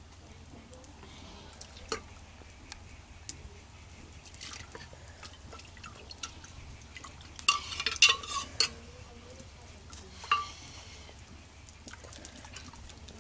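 Steel ladle stirring thin lentil dal in a pan, then clinking and scraping against the inside of an aluminium pressure cooker, with a quick cluster of sharp metal clinks about eight seconds in and another around ten seconds.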